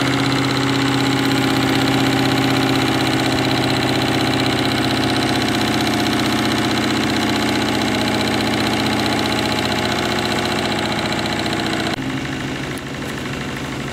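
Small homemade two-cylinder double-acting steam engine running fast and steady, an even mechanical hum with a hiss of steam over it. The hiss falls away abruptly near the end.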